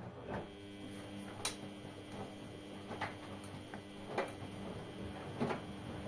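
LG front-loading washing machines running a wash cycle, drums turning with wet laundry: a steady motor hum that starts about half a second in, with light clicks and knocks every second or so.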